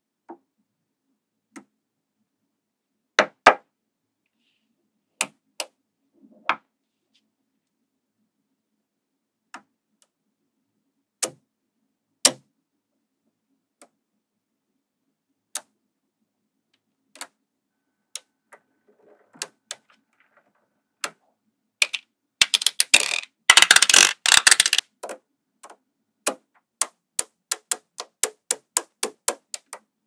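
Small magnetic balls clicking as they snap onto a model built of magnetic balls. Scattered single clicks, then a dense clattering rattle of many balls about three quarters of the way through, then a quick even run of clicks, about three a second, near the end.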